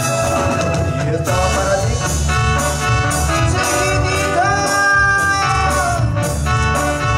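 Live band playing amplified Latin dance music, with keyboard and drum kit keeping a steady beat under long held melody notes.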